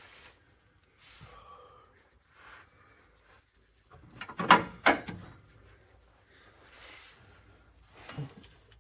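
Scattered clinks and knocks of metal parts as nuts are fitted by hand onto the bolts of a rear subframe brace under a car, with two sharper knocks about halfway through and another near the end.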